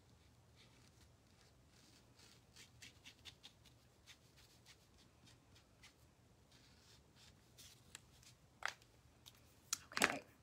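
Faint scratching and light ticks of a Posca paint pen's tip working around the edge of a small laser-cut wooden piece. Near the end come a few sharper clicks as the pen and wooden pieces are set down on the table.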